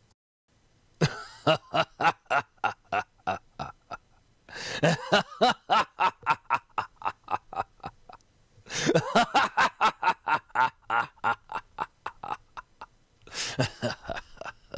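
A person laughing in four long bouts of rapid, evenly spaced "ha-ha" pulses, about five a second. Each bout starts loud and fades out before the next one begins.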